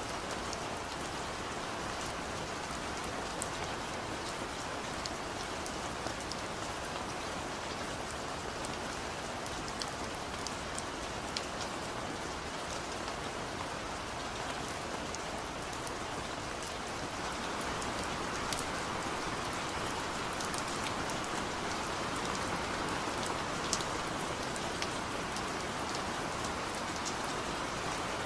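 Steady rain falling, with fine drop patter spread through it; it grows a little louder about two-thirds of the way through.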